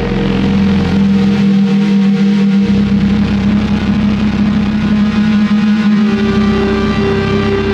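Loud, steady droning sound of a channel intro sting, with a pulsing low rumble beneath it and a higher tone joining about six seconds in.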